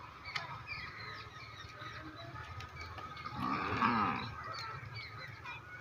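Domestic water buffalo calling once, a drawn-out moo about three and a half seconds in, with scattered high chirps throughout.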